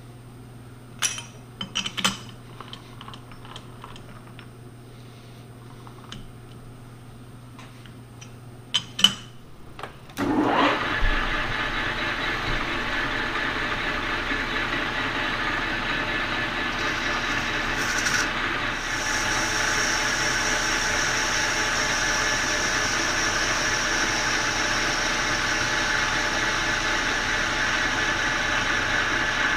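A few sharp metallic clicks as a bronze bushing is clamped in a six-jaw lathe chuck, then about ten seconds in the lathe starts, winding up in pitch, and runs steadily. From a little past halfway a higher hiss joins it as the tool faces the end of the spinning bronze part.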